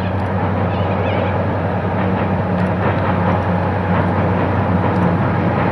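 Diesel locomotive hauling a cattle train across a bridge, its engine running as a steady low drone that grows slowly louder as it comes closer. A few bird chirps sound near the start.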